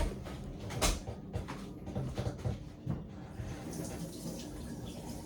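A few knocks and clatters, then water running from a tap into a sink from about three and a half seconds in, as a cleaning cloth is rinsed out.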